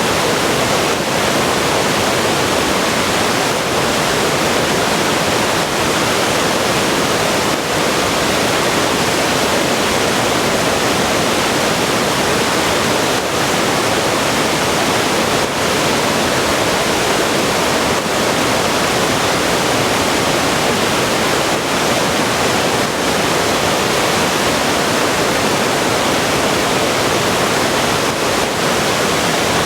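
Small river waterfall: water pouring and rushing over rocks in a steady, loud roar of noise.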